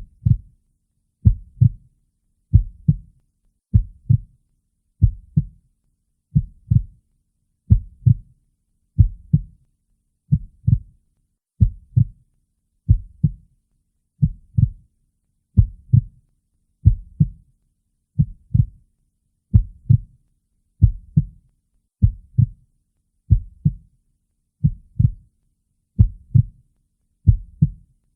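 Heartbeat sound: a slow, steady lub-dub, each beat two low thumps close together, repeating about every 1.3 seconds (roughly 46 beats a minute) with silence between beats.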